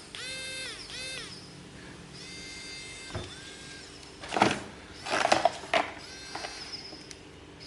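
Xiaomi Wowstick electric precision screwdriver's small motor running, very quiet, in several short runs as it is switched on and off, each one rising in pitch, holding, then winding down. A few handling knocks come around the middle.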